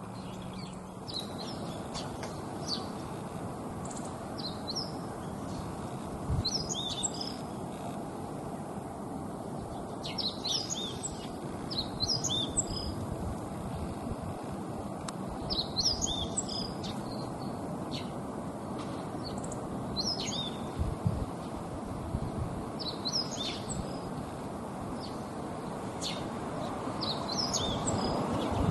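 Meadow bunting (male) singing, with short twittering song phrases repeated every few seconds over a steady low background rumble.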